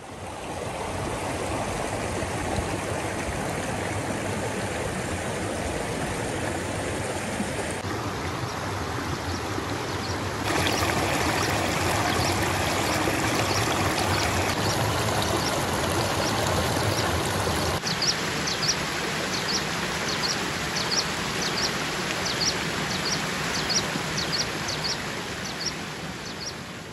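Shallow mountain stream running over pebbles and stones, a steady rushing that grows louder about ten seconds in. In the second half, short high chirps repeat about twice a second over the water.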